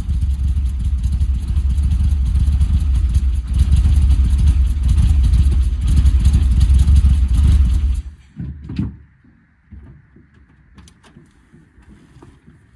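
Air-cooled VW engine running with a steady low rumble, then switched off about eight seconds in, followed by a few light knocks and clicks.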